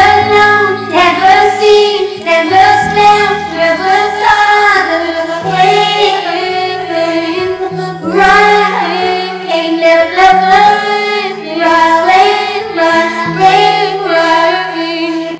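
Music: a song's closing passage, a lead voice singing long melodic lines over sustained low bass notes. The song stops right at the end.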